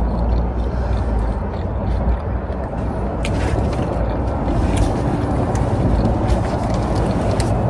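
Steady low rumble of a car interior with the engine running, with a few faint clicks.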